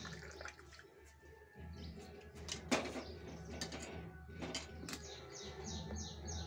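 Small birds chirping in short, high, falling notes, in quick runs mostly near the end, over a steady low hum. A sharp knock comes a little under three seconds in.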